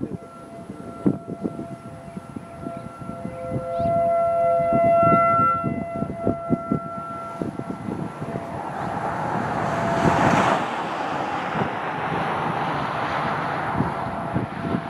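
Outdoor warning sirens sounding a steady wail, the tone swelling and easing as the sirens rotate, with low rumbling thumps throughout. In the second half a broad rushing noise swells and fades.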